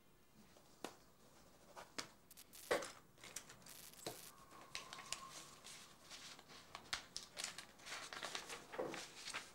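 Paper rustling and crinkling as sheets are handled and folded on a desk, with a few sharp taps, the loudest about three seconds in.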